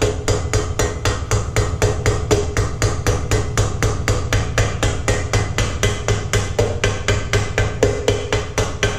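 Ball-peen hammer tapping a rivet against an anvil at about five or six even blows a second, each with a metallic ring. The blows are peening over the rivet's head to fasten a hinge to a sheet-metal toolbox.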